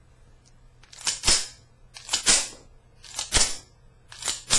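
The slide of a Colt 1903 Pocket Hammerless .32 ACP pistol is racked back and let snap forward four times, about once a second. Each cycle is a quick double metallic clack as a live cartridge is ejected from the magazine to unload the gun.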